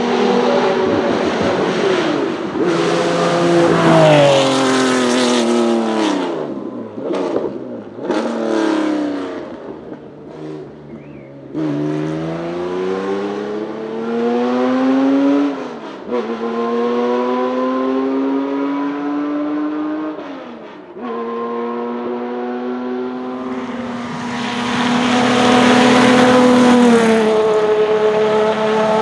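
Historic race-car engines at full throttle, led by the air-cooled flat-six of a Porsche 911 race car. Its note falls away as it passes, then climbs through the gears with two sharp upshifts about five seconds apart. Near the end another historic race car comes by at its loudest, with a steady high note that then drops as it goes past.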